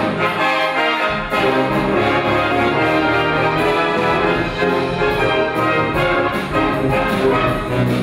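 A brass band of cornets, baritones, euphoniums and tubas playing together in sustained, full chords. The low bass line comes in about a second in.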